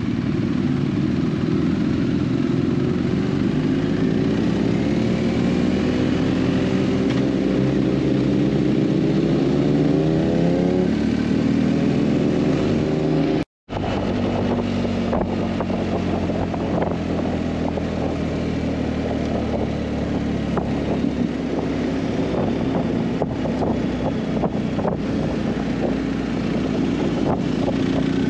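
Motorcycle engine running under way, its pitch rising steadily through the first ten seconds or so as it accelerates, then holding steadier with a rush of noise. The sound cuts out for a split second a little before halfway.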